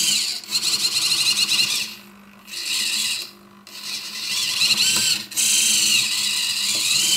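R/C servo motor and gearbox whining as it drives the linear actuator's carriage back and forth along its chain, in about four separate moves with short pauses between them. The whine rises and falls in pitch with each move as the servo seeks its commanded position, closing the loop through a slider potentiometer.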